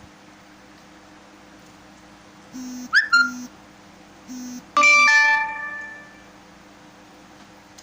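A short electronic jingle: a few brief low buzzes and a quick rising glide, then a loud chime of several ringing tones that fades out over about a second.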